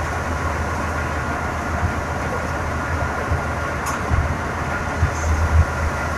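Patoz threshing machine running steadily while harvested crop is fed into it: a loud mechanical din over a low rumble that swells in uneven thumps, with a faint steady whine higher up.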